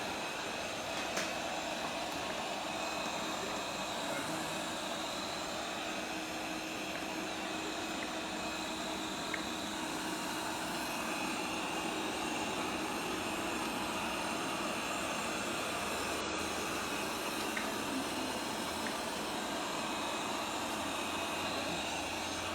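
Bagotte BG800 robot vacuum running, a steady whir with a faint hum and an occasional light click.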